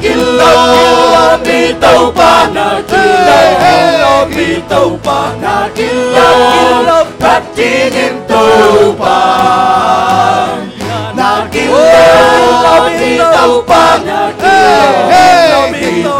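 A congregation and worship team singing a praise song together in the Zo language, phrase after phrase, with many voices blended like a choir over the band.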